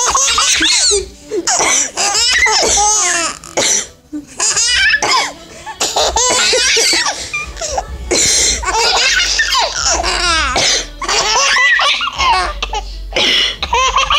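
Seven-month-old twin babies laughing hard in repeated bursts, set off by a woman's coughing, which breaks in between the laughs.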